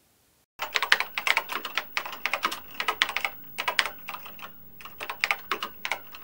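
Keyboard typing sound effect: a rapid, irregular clatter of keystroke clicks that starts about half a second in after a brief silence and goes along with the on-screen caption typing itself out.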